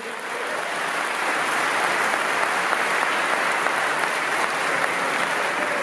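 A large audience applauding, building up over about the first second and then steady.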